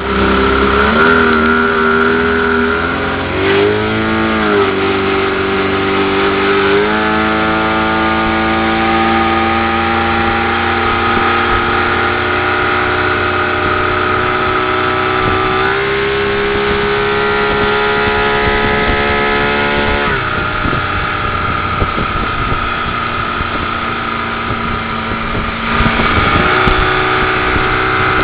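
Motorboat engine running under way. Its pitch holds steady for long stretches and shifts several times as the throttle changes, with a dip and rise about four seconds in and a lift near the end.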